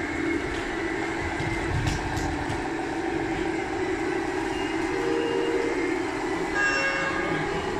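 Radio-controlled model semi truck running with a steady engine drone from its sound unit, and a short horn toot about seven seconds in.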